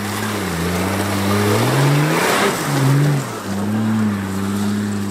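Off-road 4x4's engine revving under load, its pitch rising and falling several times, with a brief rushing noise about two seconds in.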